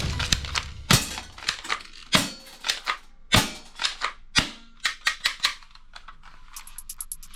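Toy guns being worked and fired: a string of sharp clicks and snaps, four louder shots about a second apart among lighter clicks, then a fast run of light ticks near the end.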